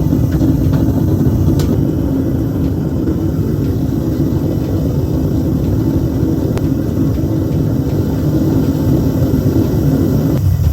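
Home-made metal-melting furnace running with a steady, loud rumble; a humming part of the sound drops out near the end.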